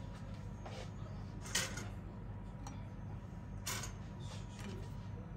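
A few scattered sharp clicks or knocks, the loudest about one and a half seconds in, over a steady low hum.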